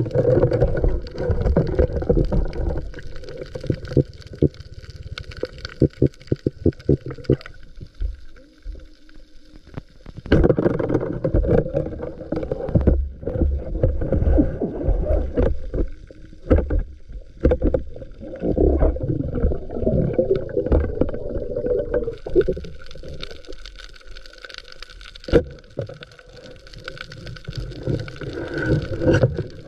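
Muffled water noise through a camera in an underwater housing: sloshing and gurgling swells with many sharp clicks and knocks, quieter around a third of the way in and again past the three-quarter mark.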